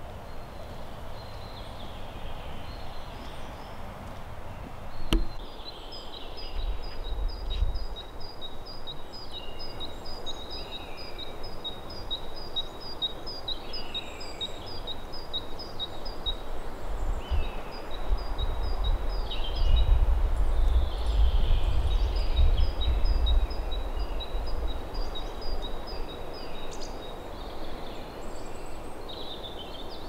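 Forest birdsong: a small songbird repeats a high two-note phrase in a quick, even series, in long runs, with other birds calling now and then. A low wind rumble on the microphone grows stronger past the middle, and there is one sharp click about five seconds in.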